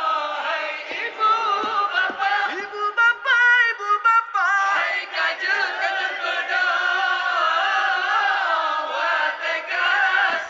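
A group of young men singing a sahur wake-up chant in Indonesian into a microphone, a sustained sung melody with a quick wavering ornamented run about three seconds in.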